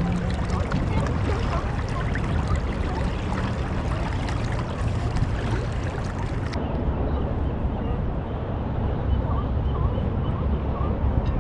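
Wind rumbling on the microphone over water sloshing around a kayak on the ocean, a steady noisy wash with no distinct events. About two-thirds of the way through the sound turns duller as the high end drops away.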